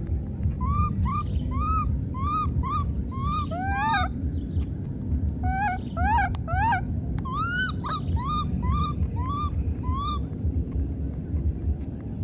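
Infant macaque crying: a string of short cries that rise and fall in pitch, two or three a second, with a cluster of sharper, rising cries around the middle; the cries stop shortly before the end. A steady low rumble runs underneath.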